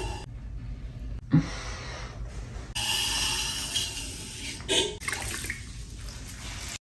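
Wet clay slip being scraped and wiped off a spinning pottery wheel head with a wooden tool, a wet, watery scraping over a low steady hum, in several short cut-together pieces. A short thump about a second and a half in.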